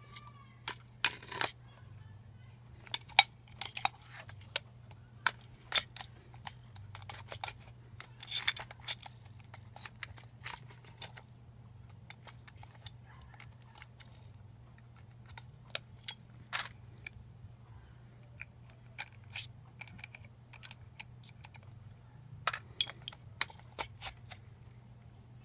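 Scattered clicks, taps and clinks of a Master Replicas lightsaber replica's parts being handled as it is taken apart, in clusters with short pauses between. A low steady hum runs underneath.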